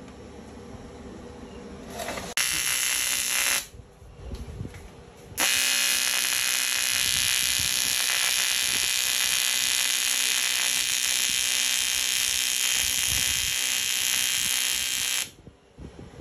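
AC TIG welding arc on aluminium, buzzing: a short burst of about a second, then one steady run of about ten seconds that cuts off suddenly.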